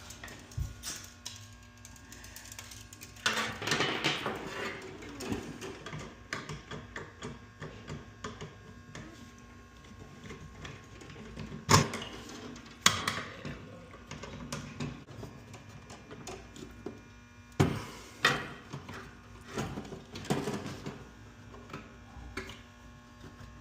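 Irregular clicks, knocks and rattles of hardware being handled during a fire alarm panel install, with a busy stretch of rattling a few seconds in and several sharp clacks later on.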